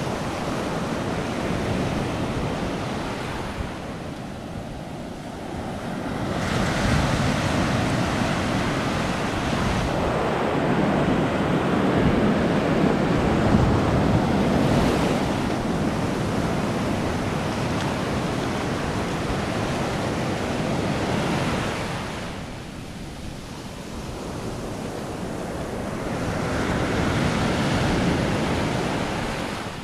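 Small surf waves breaking and foam washing up over a sandy beach, a continuous rushing wash that swells and ebbs, with two quieter lulls: one a few seconds in and another about two-thirds of the way through.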